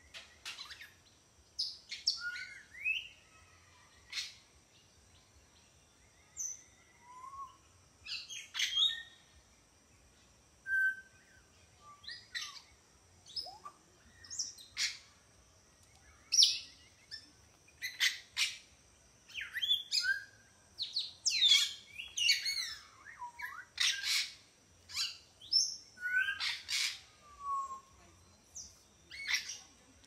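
Parrots whistling: a string of short whistles that sweep up and down in pitch, coming thicker and louder in the second half. A steady faint high tone runs under them.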